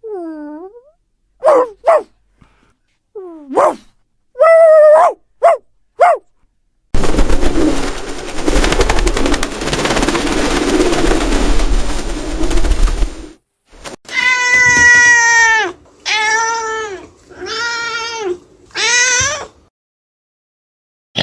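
Cats meowing: a run of short meows, then several seconds of noisy rumbling, then four longer drawn-out meows.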